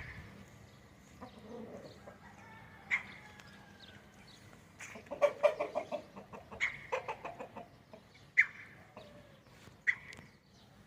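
Roosters clucking: short sharp calls every second or two, with a quick run of rapid clucks in the middle.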